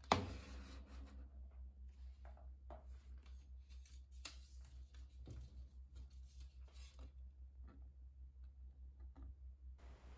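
A sharp click just after the start, then faint scattered clicks and taps of hands handling a plastic handheld component tester, over a steady low hum.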